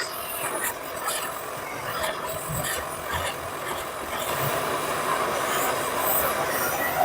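Blowtorch flame hissing steadily while heating a coupling on a gearbox shaft, with a few faint taps.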